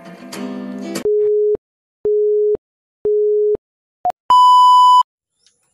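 Acoustic guitar music ending about a second in, then an electronic countdown beep sound effect: three low beeps a second apart, a short higher blip, and a longer, higher final beep.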